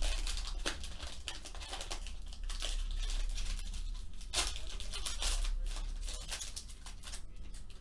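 Foil trading-card pack wrapper crinkling and tearing as it is pulled open by hand, in quick irregular crackles.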